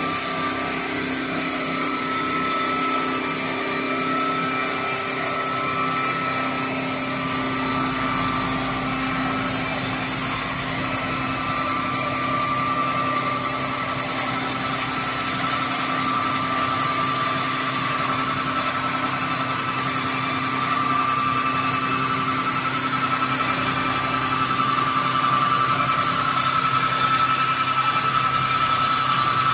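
Motor-driven board cutting saw machine running steadily, with a constant high whine over a lower hum, getting slightly louder near the end.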